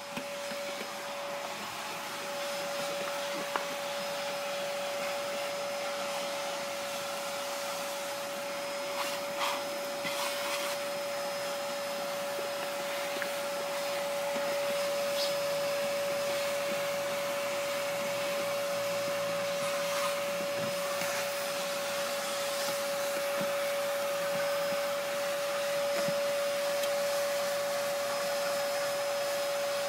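An electric motor running steadily, with a constant whine over an even rushing-air hiss, a little louder in the second half. A few light clicks and taps sound over it.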